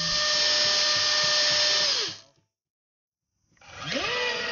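RC racing boat's electric drive motor spinning its propeller out of the water, a steady high whine that winds down and stops about two seconds in. After a second of silence, a new whine starts and rises in pitch near the end as the boat speeds up on the water.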